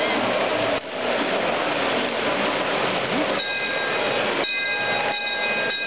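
Several S-gauge model trains running close by on the layout's metal track: a steady noise of wheels and motors. From about halfway through, a few thin high tones come in.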